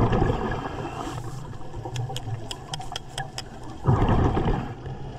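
Underwater sound of a diver breathing through a hookah regulator: a low rumble and bubble noise, a run of sharp clicks in the middle, and a louder rush of exhaled bubbles about four seconds in.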